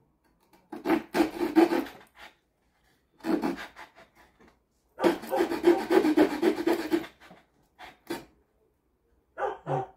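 The small saw blade of a Victorinox Swiss Army knife cutting into a softwood board with quick back-and-forth strokes. It comes in three bouts of rasping strokes, the last and longest about two seconds, then one short burst near the end.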